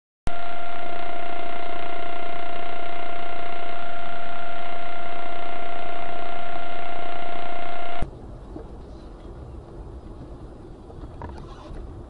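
A loud, steady tone that starts abruptly and cuts off suddenly about eight seconds in. After it comes low road rumble heard from inside a moving car.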